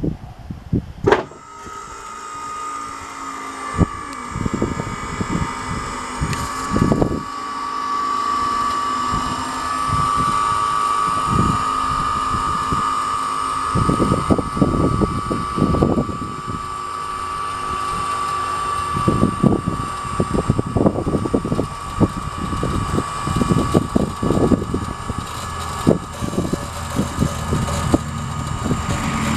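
Maxon tuck-under lift gate deploying: its electric hydraulic pump motor clicks on about a second in and runs with a steady high whine while the folded steel platform swings down and unfolds, the linkage clanking and knocking repeatedly.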